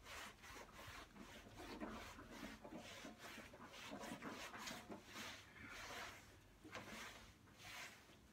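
Soapy cloth rag rubbing and scrubbing over a stainless steel barbecue panel, a quick run of soft wiping strokes.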